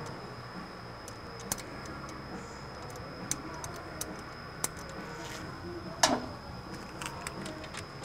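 Scattered light metal clicks and clinks as an exhaust V-band clamp and downpipe are worked into line on a snowmobile turbocharger outlet by hand, with one sharper clank about six seconds in.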